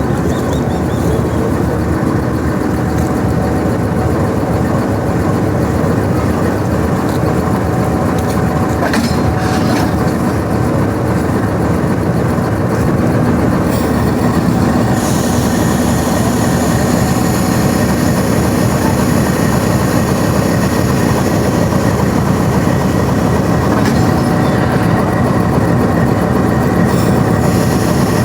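Railway locomotive running and rolling on the rails as it is coupled to the train, with sharp metallic clanks about nine to ten seconds in.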